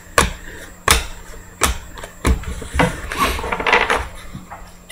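Trading cards being flipped through one at a time in the hands, each card giving a sharp snap, about six snaps spaced roughly two-thirds of a second apart, with a brief rustle of cards sliding past each other partway through.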